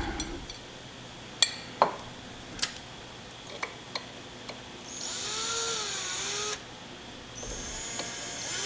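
Screws being driven into a CNC XY stage: a few scattered clicks and taps of handling, then a small powered driver whirring in two short runs, one about five seconds in and another near the end, its pitch wavering as it turns the screw.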